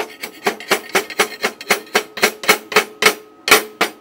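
Freshly plasma-cut 10 mm steel plate being knocked in a quick, even run of about four strikes a second, the plate ringing between blows. The knocking frees the cut-off piece and the slag from the cut.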